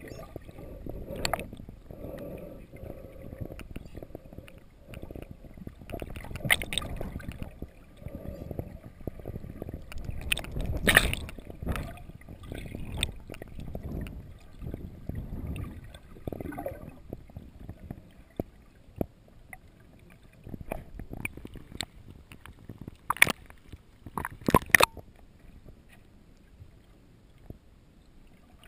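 Muffled underwater sound picked up by a submerged camera: a low rushing and gurgling of water that swells and fades, broken by a few sharp clicks, two of them close together late on.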